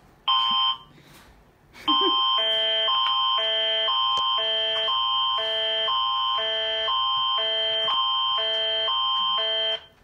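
Canadian Alert Ready emergency attention signal played through TV speakers, announcing a province-wide test alert. A high steady tone holds throughout while the tones beneath it switch quickly back and forth between a higher and a lower chord, for about eight seconds. A short burst of the same tones comes briefly near the start.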